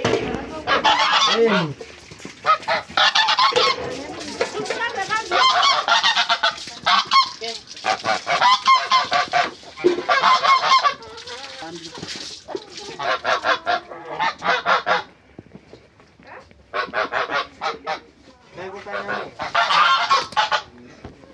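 Farmyard fowl honking loudly, in repeated bursts of a second or two with short pauses between.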